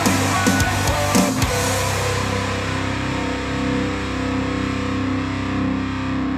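Rock music with distorted electric guitar, played back over Cambridge Audio SX50 bookshelf speakers: a few drum hits in the first second and a half, then a chord held and ringing out, its treble slowly fading.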